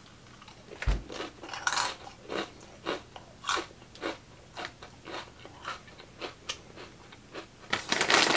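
Crunchy chewing of a mouthful of Flamin' Hot Fritos corn chips, about two crunches a second. Near the end, a louder crinkle of the chip bag as a hand reaches back in.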